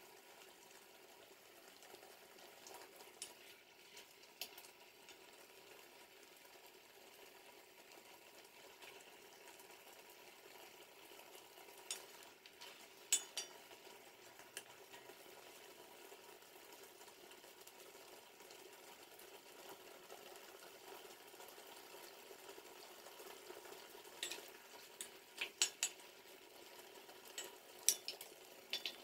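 A wooden spatula stirring sugared apple slices in a pot over medium heat, with scattered sharp clicks and knocks of the spatula against the pot, grouped about twelve seconds in and again near the end, over a faint steady hiss of the cooking.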